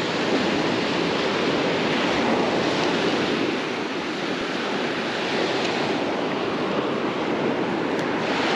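Small surf breaking and washing up a sandy beach: a steady rush of waves.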